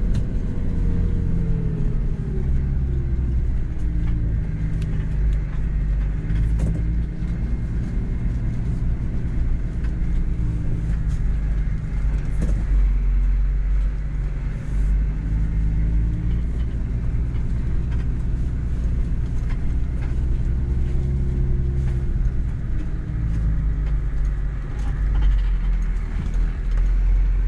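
Toyota Land Cruiser 80 Series 1HZ six-cylinder diesel engine heard from inside the cab, driving slowly over a rough dirt track, its note rising and falling with the throttle. A few light knocks from the vehicle come through over the engine's rumble.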